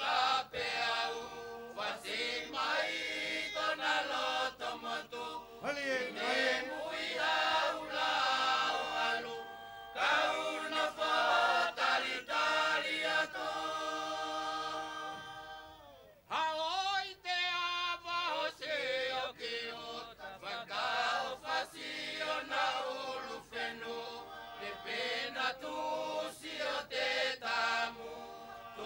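A large group of men and women singing a traditional Wallisian me'e song together, with frequent sharp percussive hits. The singing falls away briefly about halfway through, then a new phrase starts.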